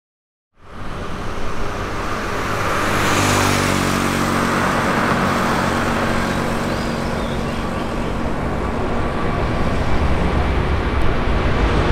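Airbus A350-900 twin Rolls-Royce Trent XWB turbofans running at takeoff thrust through the takeoff roll and lift-off: loud, steady jet noise with low, steady engine tones beneath, starting abruptly about half a second in.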